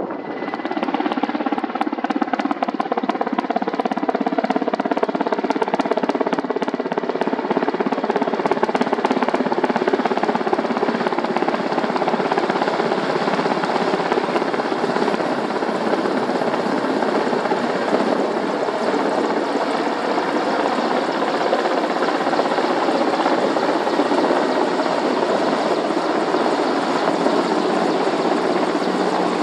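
Mil Mi-8 helicopter's twin turboshaft engines and main rotor running, a loud, even mix of turbine whine and rotor noise with several steady tones.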